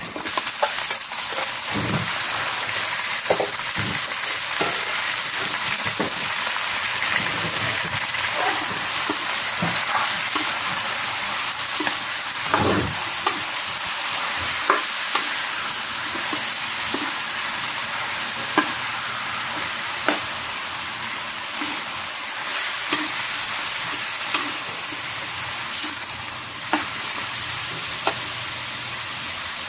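Raw chicken pieces frying in hot oil in a metal wok, a steady sizzle, with scattered knocks and scrapes of a metal spatula against the pan as the chicken is stirred.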